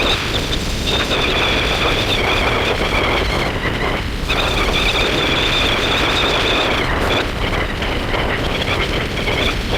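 Strong storm wind blowing hard on the microphone, with a high, steady two-note whistle that cuts out briefly a few times.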